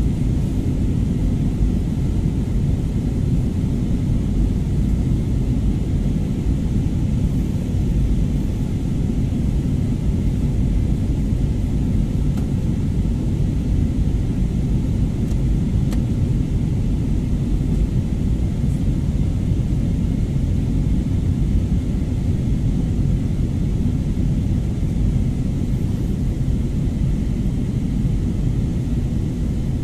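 Jet airliner cabin noise: the steady low din of the engines and the airflow over the fuselage, heard from a window seat, with no change throughout.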